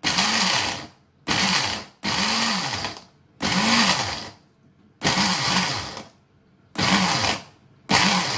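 Countertop blender pulsed in about seven short bursts, the motor spinning up and winding down each time, chopping Cream-O chocolate sandwich cookies. The short pulses keep the crumbs coarse rather than crushed fine.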